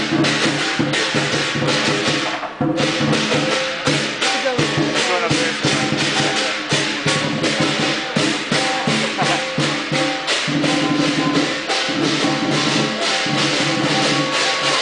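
Chinese lion dance percussion: a drum and clashing cymbals beating a fast, steady rhythm.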